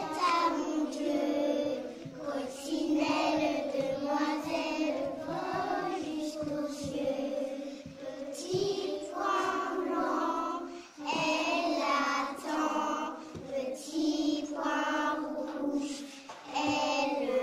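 A group of young children singing a song together in unison, with a brief break about eleven seconds in.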